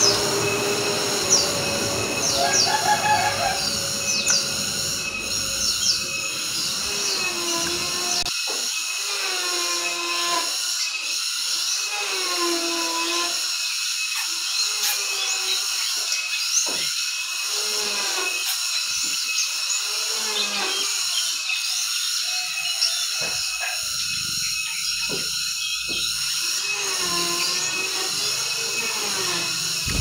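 Small caged songbirds chirping, with short sharp chirps most frequent in the first few seconds, over a continuous high-pitched buzzing drone.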